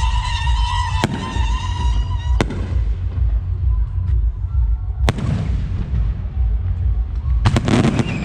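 Aerial fireworks shells bursting: single sharp bangs a second or two apart, then a quick cluster of bangs near the end, over a constant low rumble. A high whistling tone fades out in the first two seconds.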